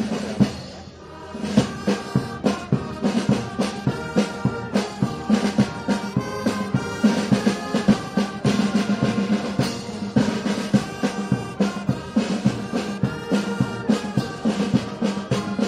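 Brass band with drums playing a march, with a steady drum beat under the brass, after a short pause about a second in.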